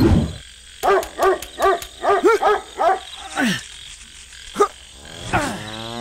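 Dubbed cartoon-style sound effects: a low thud at the start, then a quick run of short high calls that rise and fall in pitch, and a longer drawn-out call that falls in pitch near the end.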